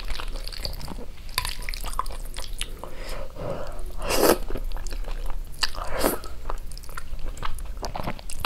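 Close-miked eating of zhajiangmian noodles: wet chewing and mouth clicks throughout, with louder noodle slurps about four and six seconds in and again at the end.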